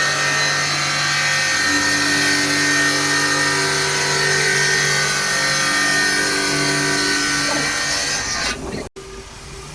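A 5-axis CNC bridge saw cutting a stone countertop: a loud, steady grinding whine of the blade in the stone, with a motor hum under it. It falls away about eight and a half seconds in and cuts out briefly near the end.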